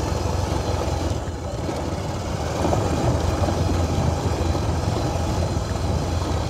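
Bajaj Pulsar 220F's single-cylinder engine running at low revs while the motorcycle moves slowly over a dirt road, a steady low engine note that grows slightly louder about two and a half seconds in.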